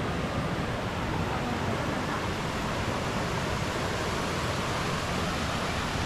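Waterfall cascading, a steady, even rush of water.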